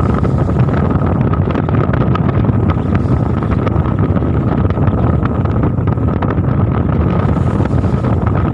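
Steady machinery drone on a fishing boat, with a thin steady whine above it, and wind buffeting the microphone.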